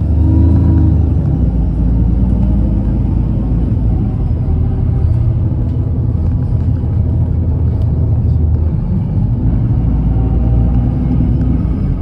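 Alexander Dennis Enviro300 single-deck bus on the move, heard from inside the saloon: a loud, steady low rumble of engine and road noise, with faint steady higher tones above it.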